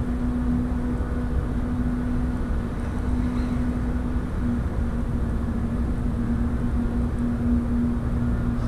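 Engine on a moored canal barge running steadily: a constant low hum holding one pitch.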